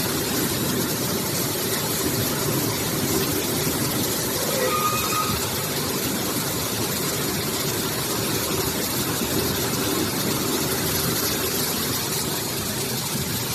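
Artificial-rice production line machinery running steadily, a constant mechanical noise with a low hum under it.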